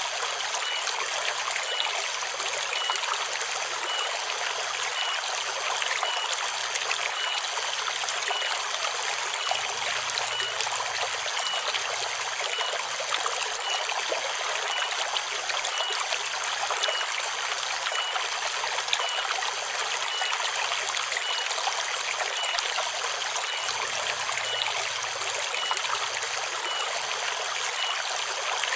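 Forest river running over rocks, a steady babbling rush of water, with a high steady drone of cicadas (tonggeret) above it. A short, faint high note repeats about once a second.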